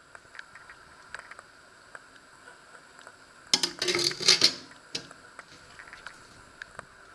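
Steel pot of foamy liquid simmering on the stove, with faint scattered ticks and pops. About three and a half seconds in, a loud rattling clatter lasts about a second.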